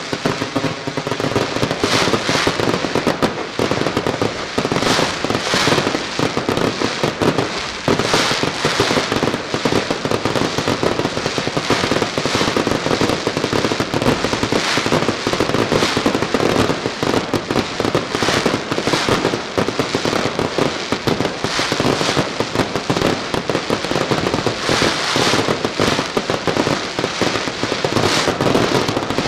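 Fireworks display in full barrage: aerial shells bursting in a dense, unbroken stream of bangs and crackling, with louder reports about once a second.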